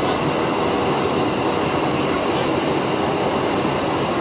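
Steady cabin noise inside a Boeing 737-300 on final approach with flaps extended: its engines and the air rushing past the airframe, heard from a seat over the wing, with a faint steady hum.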